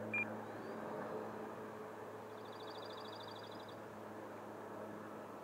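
Faint steady whoosh of a 64 mm electric ducted-fan RC jet (4S Freewing Stinger 64) flying past throttled back. A short high chirp comes just after the start, and a fast, even high trill comes in the middle.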